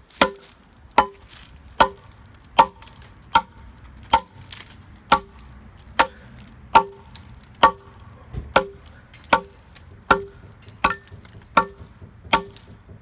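RMJ Tactical Eagle Talon tomahawk chopping one-handed into a log, one sharp blow a little under every second at an even pace, each strike with a short ring.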